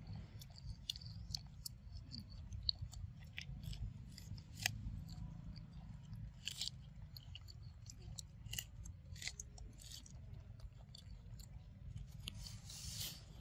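Macaques biting and chewing kernels off a cob of sweetcorn: irregular crisp clicks and crunches, a few louder ones standing out.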